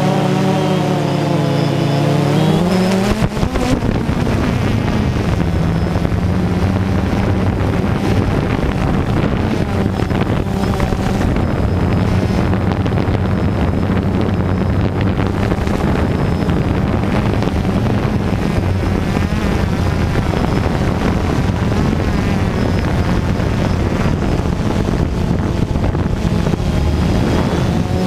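Electric motors and propellers of a small camera drone, heard up close from the camera it carries: a steady buzzing hum with wind rush. For the first few seconds the pitch slides down as the motors slow for the descent, then it settles to an even note.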